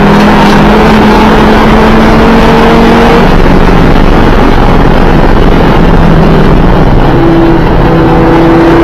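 2012 Audi TT RS's turbocharged five-cylinder engine running hard and loud on track. Its pitch climbs for about three seconds, then drops away, and it holds a steadier note near the end.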